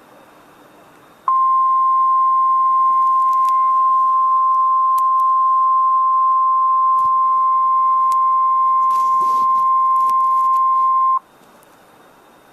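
NOAA Weather Radio 1050 Hz warning alarm tone: a single loud, steady beep that starts about a second in and holds for about ten seconds before cutting off, with faint radio hiss on either side. The tone signals that an emergency warning message follows.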